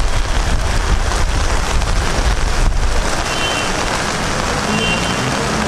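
Steady rain falling on a wet paved street, an even hiss with a low rumble underneath.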